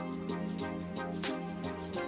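Background music: sustained pitched notes over a steady beat.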